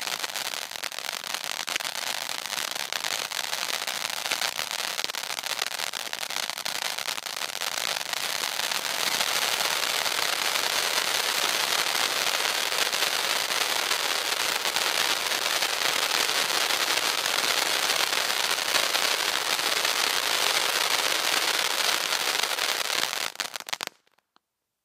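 Consumer firework ('Zen') going off in a dense, unbroken stream of rapid small pops and crackles, with no single big bang. It grows louder about a third of the way in and cuts off abruptly about a second before the end.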